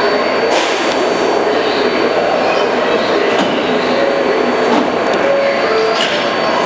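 Two New York City subway trains, an R142A and an R62A, standing in a station with their equipment running: a steady loud hum and hiss. Short bursts of hiss come about half a second in, midway and near the end.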